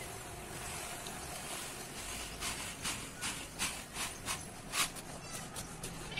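Dry sand poured from a plastic tub into a plastic basin: a steady hiss of falling grains on plastic, with a series of short louder rushes in the middle.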